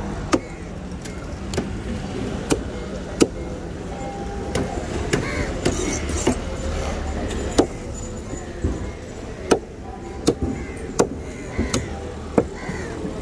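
Large knife chopping through yellowfin tuna meat and striking a wooden cutting board: a dozen or so sharp, irregular knocks about a second apart, over a steady low rumble.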